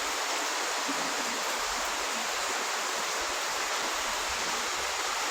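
Steady rush of flowing water, an even hiss with no breaks or gusts.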